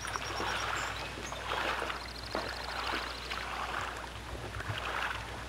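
Water splashing and lapping around a sailboard as the sail is pulled up out of the lake, in uneven swells over a steady low hum.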